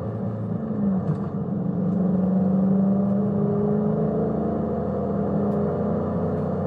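Dodge Scat Pack's 6.4-litre Hemi V8 pulling under throttle, its note climbing about a second in and then holding steady.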